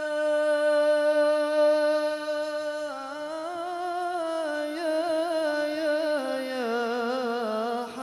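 A man's solo voice singing an unaccompanied Arabic sholawat melisma. He holds one long note for about three seconds, then moves into a wavering, ornamented line that steps down in pitch.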